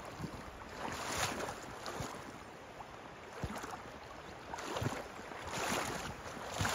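Shallow river rushing over a rocky shoal, a steady wash of water noise that surges louder a few times, with wind buffeting the microphone in low thumps.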